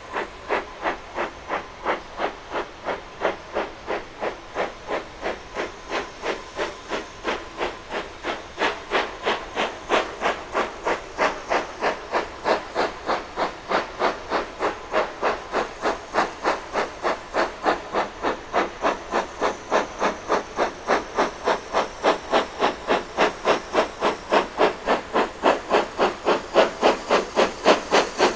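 Steam locomotive exhaust beats chuffing in a steady, even rhythm of about three beats a second, getting louder towards the end as the engine draws nearer.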